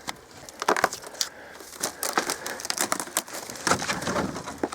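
Irregular crunching and cracking of old debris, dry wood and junk, a few sharp cracks at a time.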